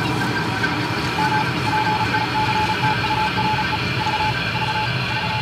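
A run of short electronic beeps on a single pitch, with uneven gaps, begins about a second in and runs until near the end. Under them is a steady rumbling background noise.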